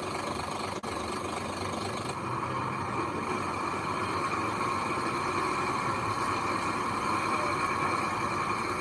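Heavy machine's diesel engine running steadily, with a brief dropout under a second in.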